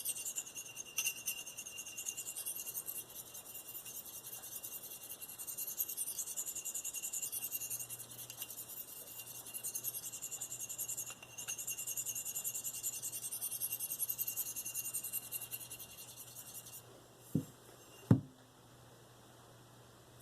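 V-Toku2 steel blade of a Spyderco Endura 4 drawn in repeated light strokes across the lapped fine side of a Spyderco 302F ceramic stone, a high scraping hiss with each stroke, under very light pressure to refine the edge. The strokes stop about three seconds before the end, followed by two sharp knocks, the second the loudest.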